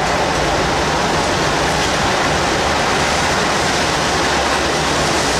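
Steady, loud rushing of strong storm wind, with a fluttering low rumble of wind buffeting the microphone.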